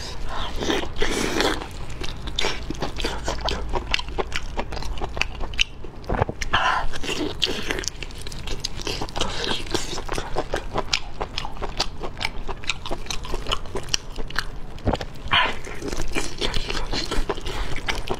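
A person biting and chewing braised octopus close to the microphone, with many short clicks and mouth smacks throughout and a few louder bites.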